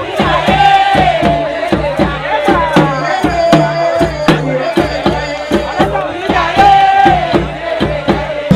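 Lively party music with a steady, quick drum beat and a voice singing a melody over it.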